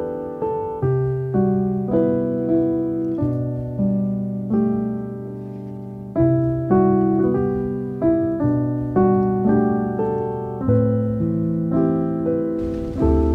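Background piano music: slow, soft chords struck about every half second to second, each ringing and fading away. Rain hiss comes in under the piano near the end.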